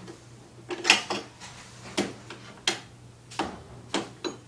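Hard plastic and metal parts of a lawnmower clicking and knocking as they are fitted together during assembly. There are about six sharp clicks spaced unevenly, and the loudest comes about a second in.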